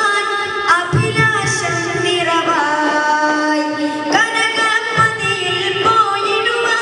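Duff muttu: a singer's Malayalam devotional song over a loudspeaker, with a group of daf frame drums struck in time, a few sharp drum strikes standing out.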